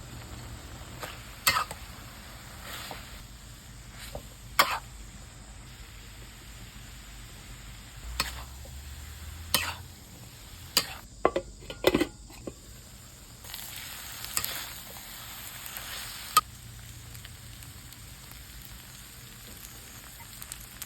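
Food sizzling as it fries in a pan, with a utensil knocking and scraping against the pan every few seconds. The hiss grows louder for a few seconds past the middle.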